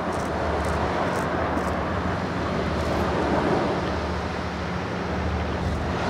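A steady low motor hum over an even outdoor noise of wind and water.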